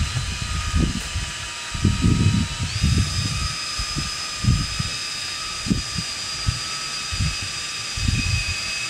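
Handheld electric drill running steadily with a whine that steps up in pitch about three seconds in as it speeds up, with irregular low rumbling underneath; it is stirring a container of paint.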